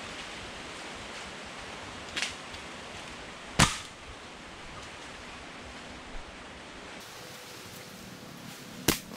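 Three sharp cracks over a steady hiss: a light one about two seconds in, the loudest about three and a half seconds in, and another near the end.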